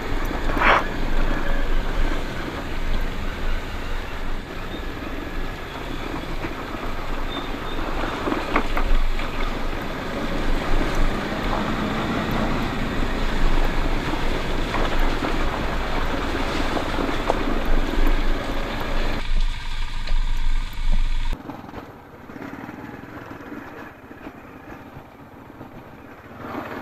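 Motorcycle riding along a rough, stony dirt trail: the engine runs under the steady noise of the ride, with scattered knocks and rattles as the bike goes over rocks. A little past three-quarters of the way through, the sound drops suddenly to a much quieter background.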